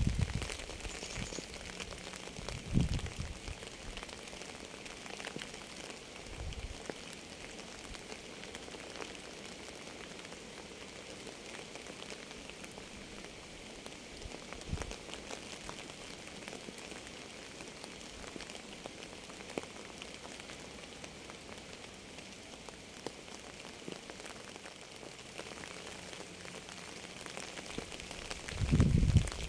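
Steady rain falling in an even patter, with a few short low thumps now and then and a louder one near the end.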